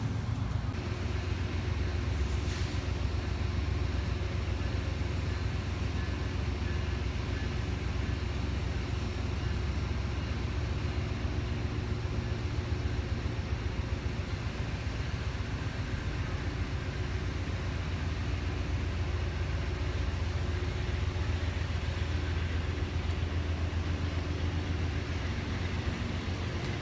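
Amtrak passenger train rolling past at trackside, a steady low rumble of wheels and cars on the rails.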